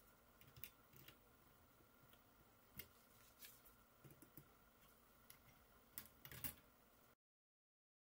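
Faint, scattered clicks and snips from small side cutters cutting through the thin, soft metal webs of a DualSense joystick module's frame on the controller's circuit board. The sharpest cluster of clicks comes about six seconds in, and the sound cuts out completely about seven seconds in.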